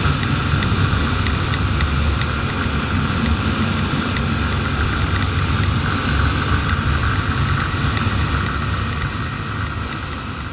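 Wind rushing over an action camera's microphone on a moving motorcycle, with the bike's engine running steadily underneath. The sound fades out near the end.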